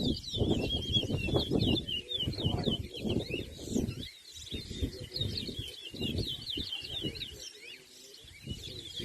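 Caged towa-towa (chestnut-bellied seed finch) singing in a bird-song race: a fast, nearly unbroken run of high twittering chirps, over a low background rumble.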